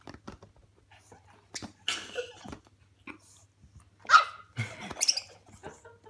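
Pug barking at a budgerigar: a few short, sharp barks, the loudest about four seconds in.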